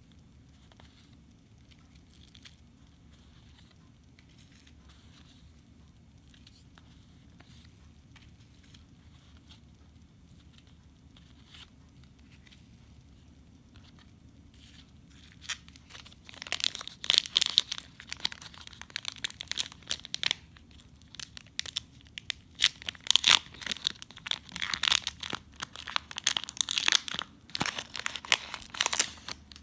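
Plastic wrapping on trading card packaging being torn open and crinkled. It is quiet at first, with only faint handling; about halfway through, loud tearing and crinkling starts in quick repeated bursts.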